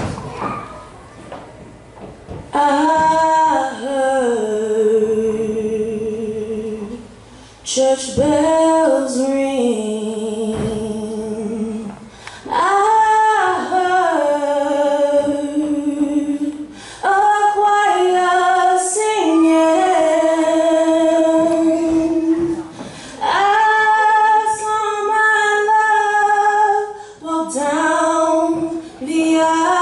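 A woman singing solo into a microphone. She begins about two seconds in and sings slow phrases that end in long held notes with vibrato, many of them sliding down in pitch, with short breaths between phrases.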